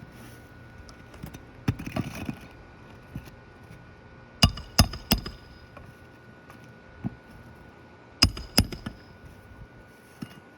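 A hammer driving roofing nails back into a shingle: sharp ringing strikes, three in quick succession near the middle and two more a few seconds later, with a few lighter taps between.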